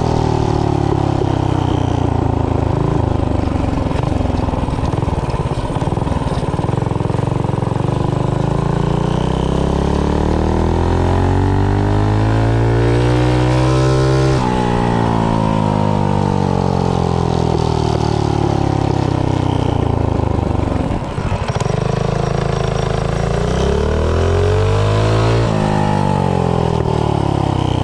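Predator 212cc single-cylinder four-stroke engine on a minibike, fitted with a performance cam and stiffer valve springs, running under way. Its pitch sinks, climbs steadily to a peak about halfway through, drops abruptly as the throttle comes off, then winds up again and falls near the end.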